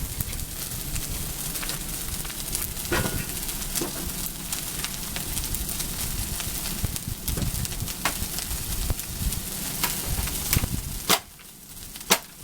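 Large bonfire of dry rubbish burning with a steady hiss and crackle, with a few sharp, loud pops near the end.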